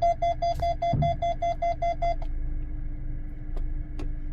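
Honda WR-V front parking sensor buzzer beeping rapidly, about seven short beeps a second, the fast rate that warns of an obstacle close to the front corner. The beeping stops about two seconds in, leaving a low steady hum.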